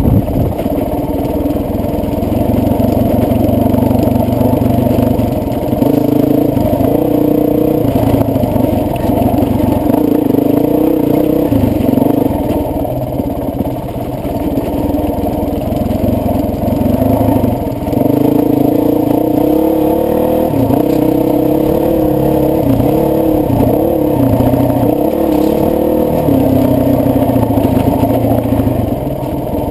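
Honda CRF450X dirt bike's single-cylinder four-stroke engine running on the trail, revs rising and falling with the throttle, sounding muffled.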